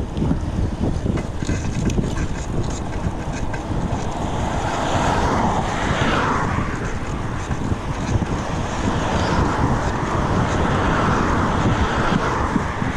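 Wind buffeting the microphone while cycling along a road, with the rushing tyre noise of passing car traffic swelling and fading a couple of times.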